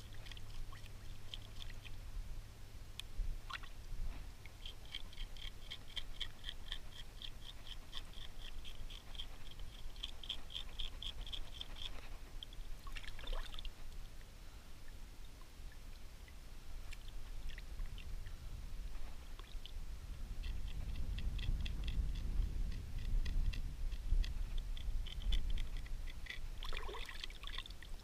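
Water trickling and splashing as a freshly gutted grunt is rinsed and scraped clean by hand in shallow water, with wind rumbling on the microphone. Two long spells of quick, rapid ticking, about a third of the way in and again near the end.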